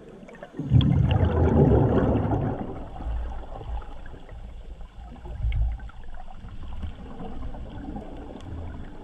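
Underwater rush of a scuba diver's exhaled bubbles, starting about a second in and fading over two seconds, with a shorter surge near the middle; muffled water noise in between.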